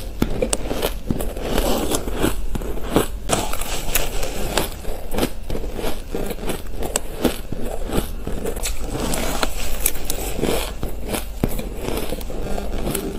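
Mouthfuls of shaved ice being bitten and chewed close to the microphone: a dense run of crunching crackles and small clicks.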